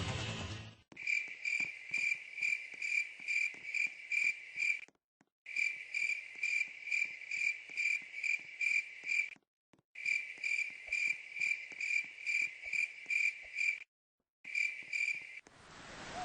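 Cricket chirping steadily, about two short chirps a second. The chirping cuts out abruptly into dead silence three times and starts again each time.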